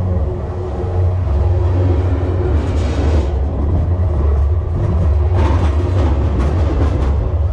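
Freight train cars rolling past close to the rail: a steady heavy low rumble of steel wheels on the track, with a few sharp clacks about three seconds in and again toward the end.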